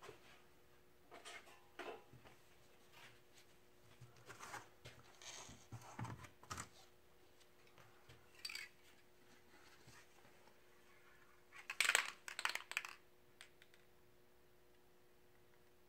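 Crinkling and rustling of crumpled paper sheets being handled and pressed against a spray-paint board in scattered short bouts. The loudest part is a quick run of sharp crackles about twelve seconds in. A faint steady hum sits underneath.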